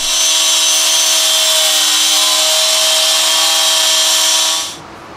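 Angle grinder cutting off small steel tabs on a truck's motor mount: a steady, loud grinding whine that stops abruptly about four and a half seconds in.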